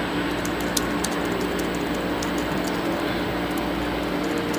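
Faint computer-keyboard typing sound effect, a few sparse key clicks, played back quietly under a steady background hum. The typing is too soft against the hum.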